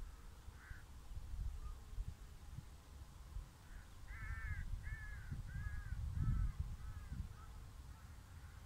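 A crow cawing: one faint call about a second in, then a run of about six calls from about four seconds in, each fainter than the last, over a low rumble of wind on the microphone.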